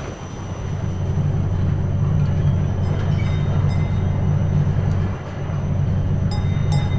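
A steady, low rumbling drone that dips briefly about five seconds in, with faint light ticks and clicks over it.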